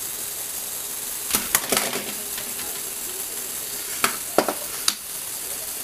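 Sharp clicks and clatter of diecast model cars being handled on a Lego Technic platform, in two short clusters, about a second and a half in and about four seconds in, over a steady hiss.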